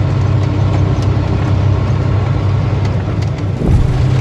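Tractor-trailer's diesel engine droning steadily, heard from inside the cab while driving. About three and a half seconds in the engine note dips briefly and comes back a little louder at a new pitch.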